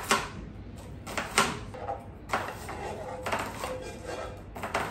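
Metal spoon scraping and clinking against a steel cooking pot while a creamy mixture is spooned out of it. Sharp clinks at the start and about a second and a half in, then a few seconds of scraping.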